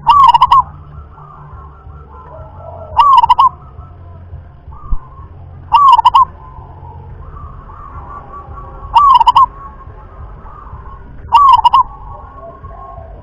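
Local zebra dove (perkutut) singing: five short rolling coos, each about half a second, repeated roughly every three seconds in a regular rhythm.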